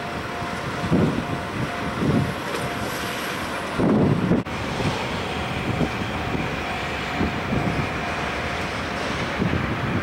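JNR Class DD51 diesel-hydraulic locomotive running as it pulls away slowly with a train of empty cement tank wagons. Over it, the level-crossing alarm rings with a steady tone.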